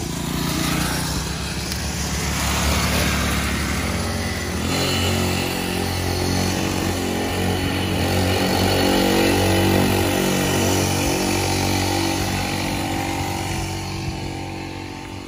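Small engines of kids' mini pocket bikes running as they ride around, the pitch rising and falling with the throttle. A second bike's engine joins about a third of the way in, and the sound eases off near the end.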